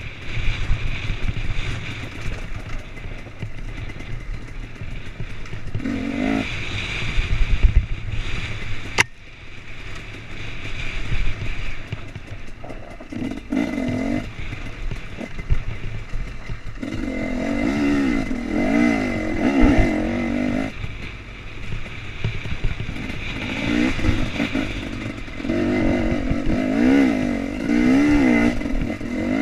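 2016 KTM 250 EXC two-stroke enduro engine heard from the rider's helmet, mostly off the throttle at first with rumble and clatter from the rough trail, then revving up and down in repeated bursts from about halfway on. A sharp knock about nine seconds in.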